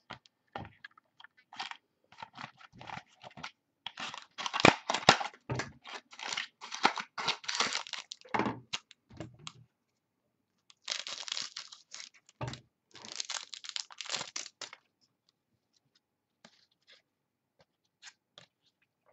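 Foil wrapper of a trading-card pack being torn open and crinkled by hand, in two stretches of crackling separated by a short pause, then only a few faint handling clicks near the end.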